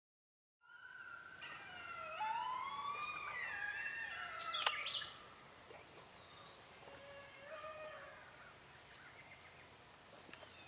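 Coyote pup howls from a predator call: several high, wavering howls glide up and down over one another, starting about a second in and dropping away just after a sharp click near the middle, with fainter howls after. A steady high insect drone runs underneath.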